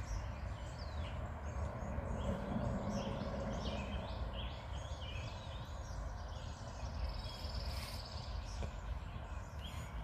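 Several wild birds chirping and calling over a steady low outdoor rumble, with one bird giving a fast trill about three-quarters of the way through.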